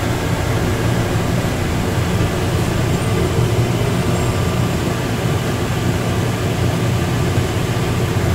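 Inside a car of Atlanta airport's automated Plane Train people mover running steadily through its tunnel: an even low rumble and hum of the rubber-tyred car on its concrete guideway.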